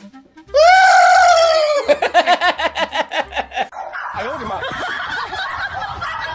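Loud laughter: a long high 'aaah' that slides down and holds, breaking into a quick run of 'ha-ha-ha', then softer mixed voices from about four seconds in.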